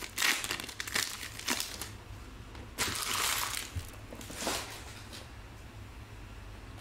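Trading cards and a plastic pack wrapper being handled, with several short crinkling bursts over the first five seconds, then only a faint low hum.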